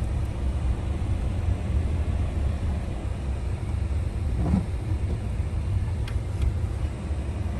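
Truck driving slowly, a steady low engine and road rumble heard from inside the cab.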